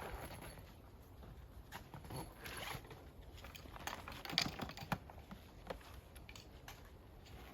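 Scattered light clicks and short rustles of small objects being handled, busiest about four to five seconds in.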